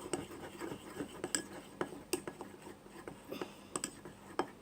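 A utensil stirring thick glue in a bowl, with irregular clicks and taps against the sides, a few a second, over a soft sticky churning.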